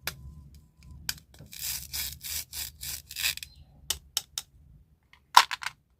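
Candy packaging being handled: a quick run of about seven rasping rustles, then several sharp clicks and taps, with a quick cluster of them near the end.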